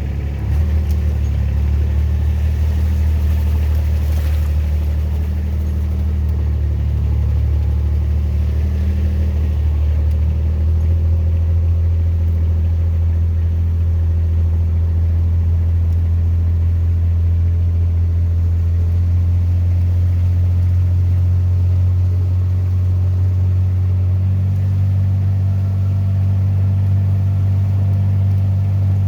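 Small engine running steadily with a low, even hum while the vehicle drives along, the tone shifting slightly about 24 seconds in.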